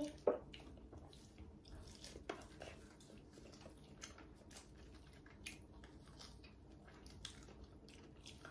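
Quiet chewing and biting as meat is eaten off the bone by hand, with soft wet smacks and small clicks scattered through.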